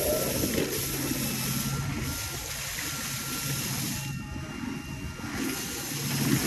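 Motorized hydrofoil board running across open water: a steady rush of wind on the microphone and hissing water spray, with a faint steady whine from the propeller drive.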